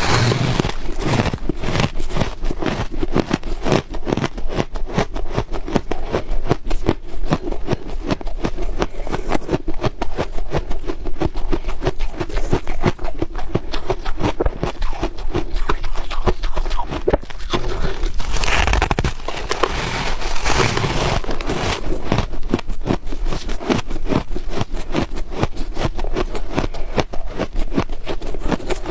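Close-miked crunching of hard ice being chewed: a steady run of crisp cracks and crunches, several a second, without pause.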